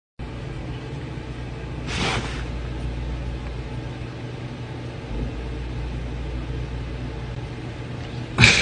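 A steady low rumble with a faint hiss over it. A short burst of noise comes about two seconds in, and a brief louder sound with a falling pitch comes near the end.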